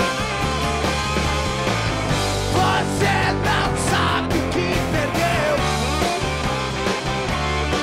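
A rock band playing live: distorted electric guitar, bass guitar and drums, with a male voice singing in the middle stretch.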